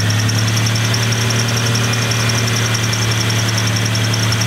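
Freshly rebuilt AMC 4.0-litre inline-six of a Jeep Wrangler YJ running steadily at a raised break-in speed, kept between 1800 and 2500 RPM to seat the rings and break in the new flat-tappet cam. A strong steady hum with a fast, light, even ticking over it.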